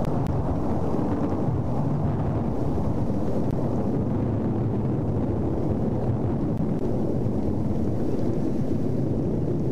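Rainstorm heard on an outdoor microphone: a steady, even rumble of heavy rain and wind noise.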